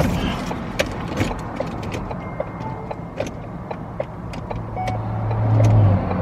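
A car failing to start: scattered clicks, then a steady low whir for about a second and a half near the end, without the engine catching. This is the kind of failed start that suggests a dead battery.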